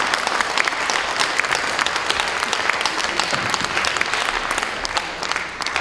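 Theatre audience applauding, a dense steady clapping that begins to thin out near the end.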